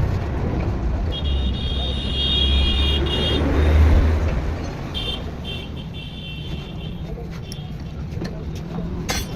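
A motor vehicle engine rumbling, swelling to a peak about four seconds in and then dying down. A high-pitched tone comes in twice over it.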